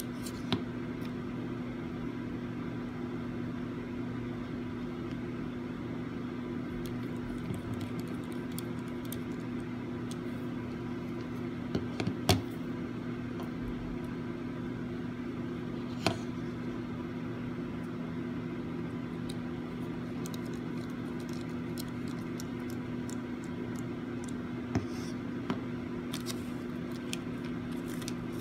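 Steady electrical hum with a few sharp clicks as small parts are handled, the loudest about halfway through.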